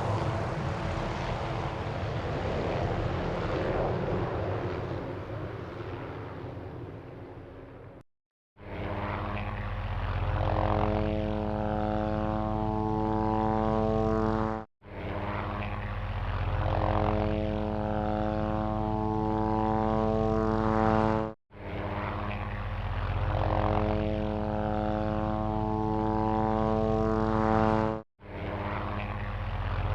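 Helicopter in flight: for about the first eight seconds a helicopter fading away, then after a brief silence a steady helicopter drone with an even rotor tone, repeated in segments of about six and a half seconds separated by short dropouts.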